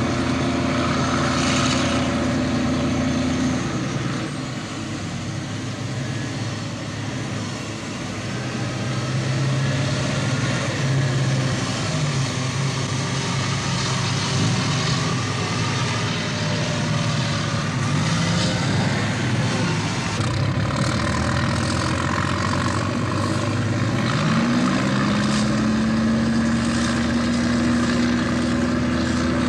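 Big diesel engines of heavy earthmoving machines (scrapers and an articulated hauler carrying clay fill) running under load. Their pitch dips and rises as they change speed, with a clear rise about 25 seconds in.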